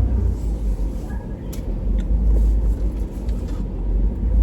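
Steady low rumble of a car, engine and road noise heard from inside the cabin.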